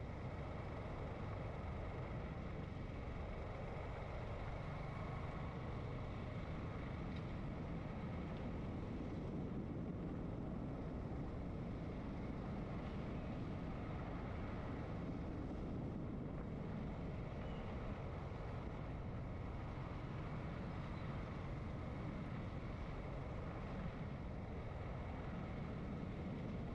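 Motorcycle on the move: steady wind rush and road noise on a helmet-mounted camera's microphone, with the bike's engine mixed in and no change in pace.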